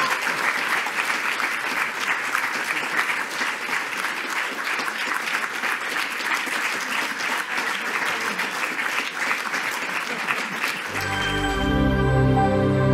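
Audience applauding, a dense, steady clapping. About eleven seconds in, music with a strong bass comes in over the applause.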